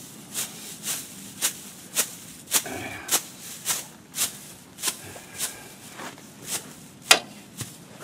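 Weeds and grass being chopped by hand in steady, regular strokes, a little under two a second, with one sharper stroke about seven seconds in.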